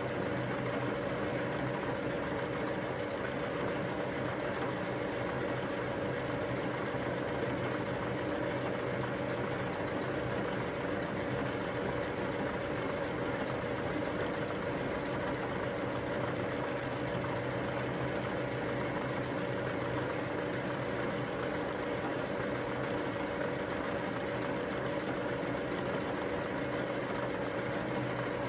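Milling machine running steadily, its spindle and gearing giving a constant hum while a piston's valve cut-out is milled with the rotary table being turned by hand.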